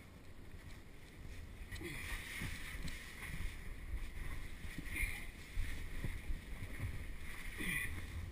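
Caver crawling through a tight cave passage: clothing, gloves and the helmet camera scraping and rubbing against rock, with irregular scuffs that grow louder about two seconds in.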